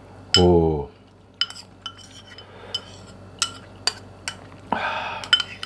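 Metal spoon clinking and scraping against a ceramic bowl as it cuts up a meatball, about eight light clinks spread out. The loudest sound is a short tone falling in pitch about half a second in.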